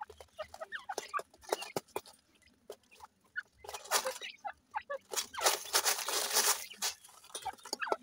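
Grey francolin hen and chicks calling: a stream of short peeps and clucks. A louder rustling noise comes from about five seconds in and lasts well over a second.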